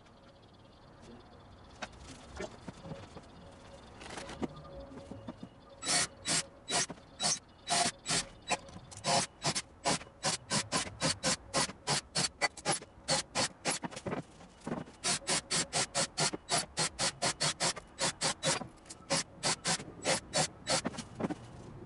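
Rapid, regular rasping strokes on wood, about three a second, starting about six seconds in, with a short break in the middle.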